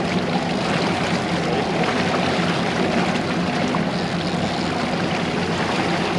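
Boat motor running steadily, with water rushing and splashing along the hull.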